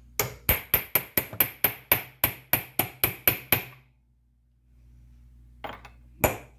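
A hammer tapping a steel socket to drive a pulley onto a Lucas C40 generator's armature shaft. About fourteen ringing metal strikes come at roughly four a second, then a pause of about two seconds, then the strikes start again near the end. The pulley is going on hard.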